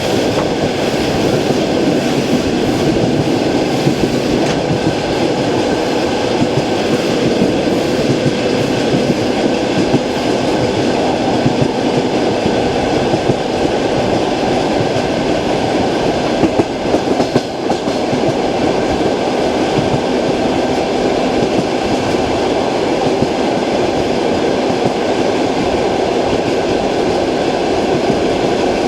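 Passenger train wheels rolling over jointed track, heard from inside a moving carriage: steady running noise with the clickety-clack of the wheels crossing rail joints. A short cluster of louder knocks comes about seventeen seconds in.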